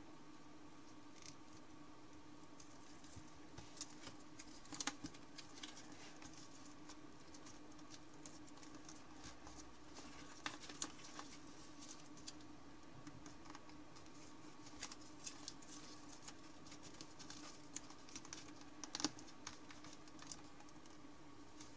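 Faint crinkling and tapping of thin paper being folded and pinched by hand into an origami tree frog, with a few louder crackles about five, eleven and nineteen seconds in. A steady low hum runs underneath.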